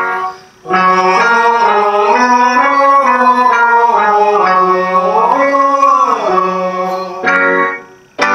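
A choral etude being sung: an upper melodic line moving stepwise and bending between notes over a lower sustained line that changes pitch in steps, with short breaks between phrases about half a second in and near the end.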